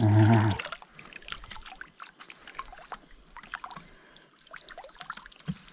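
Water trickling and dripping from a mesh keep net as it is lifted out of the river, with many small drips and ticks.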